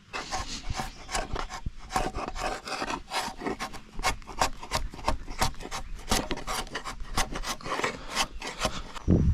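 Repeated rasping, scraping strokes on wood, roughly two a second, with a low thump near the end.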